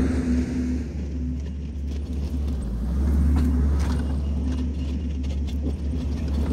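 Kubota SVL65-2 compact track loader's diesel engine working under load as the machine pushes a pile of mulch and brush with its grapple bucket, with scattered sharp cracks. It grows louder about halfway through as the loader comes closer.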